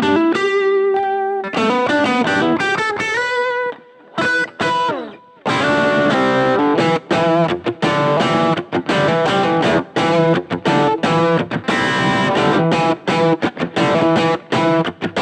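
Electric guitar played through a Blackstar Fly 3 3-watt mini amp. It starts with single-note melodic phrases, goes almost quiet for about a second and a half with a few scattered notes, then moves into a denser rhythmic riff with overdrive.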